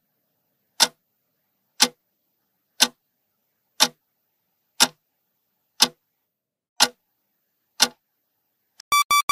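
Countdown timer ticking once a second, eight sharp ticks, then a quick run of short electronic beeps near the end as the time runs out.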